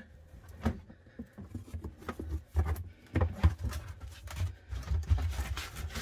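Molded plastic sump basin lid being set down and shifted into place over the pit: a scattered string of light knocks, taps and scrapes, with a louder bump near the end.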